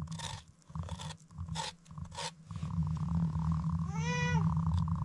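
A cat purring in a steady low rumble, with a short rising-and-falling meow about four seconds in. Several short scratchy noises come in the first half.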